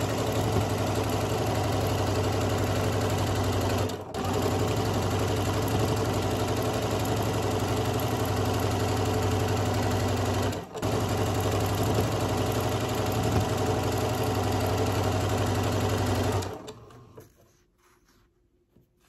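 Janome M7 sewing machine stitching steadily at speed, breaking for an instant twice, then stopping a couple of seconds before the end.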